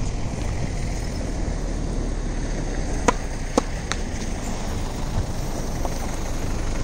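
Two sharp tennis-ball strikes on a racket or court about half a second apart, a fainter click just after, over a steady low background rumble.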